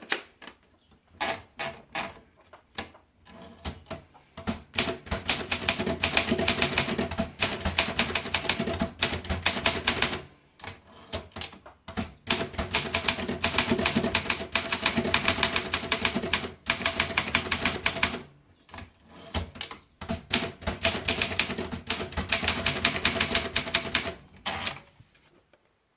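Optima Elite manual typewriter being typed on: rapid key strikes in three long runs, with short pauses and a few single strikes between them.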